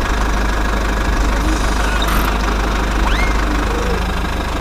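A motor running steadily with a low, even rumble. A bird chirps briefly about three seconds in.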